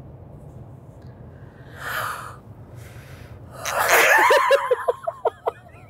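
Inside a moving Subaru Outback, a steady low road hum runs under a person's breathy exhale about two seconds in. About four seconds in comes a louder breathy vocal outburst that trails off in a string of short pitched pulses.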